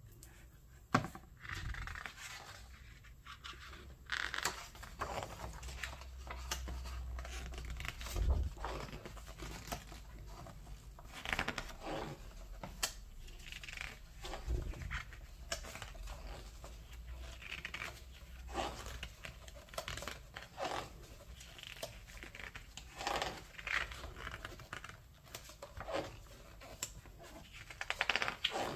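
Pages of a large hardback art book being turned by hand one after another: paper swishing and rustling, with an occasional sharp tap as a page is caught or lands.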